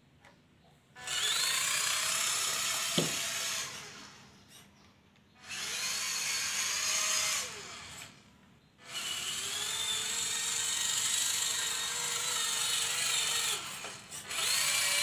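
Small electric drive motor of a homemade cardboard RC truck whining as it drives, in three runs of a few seconds with short stops between; the pitch climbs as each run starts.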